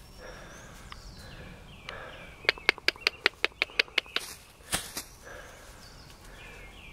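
A quick run of about ten sharp clicks, about six a second, in the middle, then a single click: a person clicking their tongue to coax a miniature horse along. Birds chirp faintly in the background.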